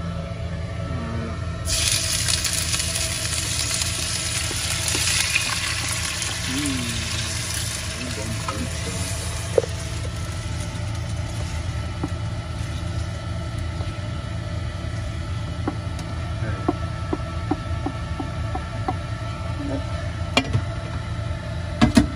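Pieces of octopus tipped into hot olive oil in a wok, sizzling suddenly about two seconds in and then easing off gradually, with a spatula scraping and tapping against the pan.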